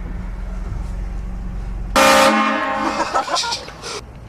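Compressor-fed air horns on a vehicle blasting once, suddenly and loudly, about halfway in for roughly two seconds, over the steady low rumble of the vehicle.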